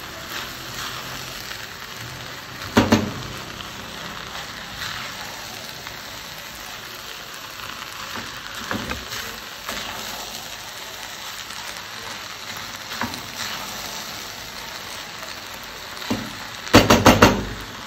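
Rice and minced beef sizzling gently in a stainless steel pot on the lowest heat while being stirred with a silicone spatula. The spatula scrapes and knocks against the pot now and then, loudest about three seconds in and in a quick run of four knocks near the end.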